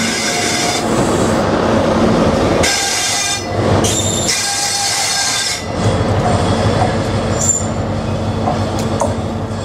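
InterCity 125 High Speed Train passing close by: Mark 3 coaches rolling past with wheel and rail noise, then the rear diesel power car goes by, its engine running steadily as the train moves away.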